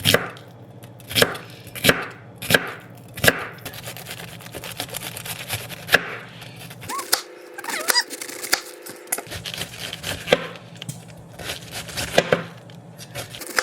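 Kitchen knife cutting food on a cutting board: a few sharp chops about two-thirds of a second apart at the start, then lighter, quicker cuts.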